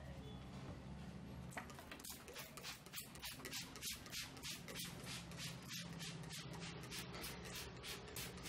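A barber's hands working rhythmically over hair and scalp in a head massage: rustling, brushing strokes about three to four a second that start about a second and a half in and stop near the end, over a low steady hum.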